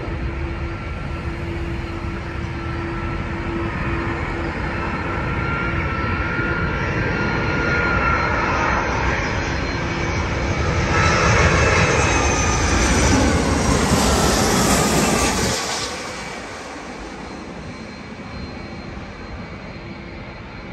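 Jet airliner flying over: its engine noise builds steadily to a peak about eleven to fifteen seconds in, with a whine that slides down in pitch as it passes, then falls away quickly.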